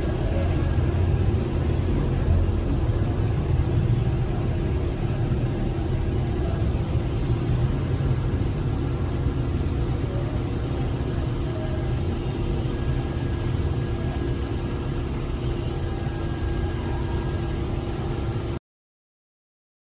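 Street traffic heard through a vehicle window: a steady low engine rumble with motorcycles passing close by. It cuts off suddenly near the end.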